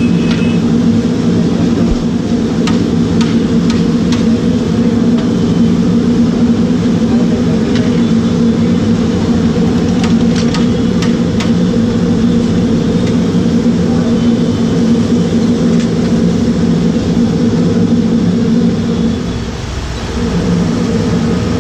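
Steady low roar from the gas burner under a large iron kadai of frying potato chips, with oil sizzling and a few sharp metal clinks of a slotted ladle against the pan. The roar drops briefly near the end.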